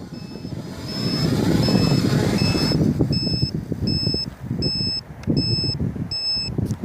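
Gusty wind buffeting the microphone in uneven low rumbles, with a short, high electronic beep repeating steadily about three times every two seconds.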